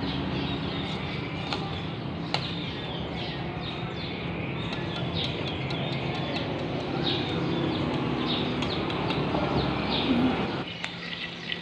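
Papaya leaves stir-frying in a wok on a gas stove: a steady sizzle over a low burner hum that cuts off abruptly near the end. Birds chirp repeatedly over it.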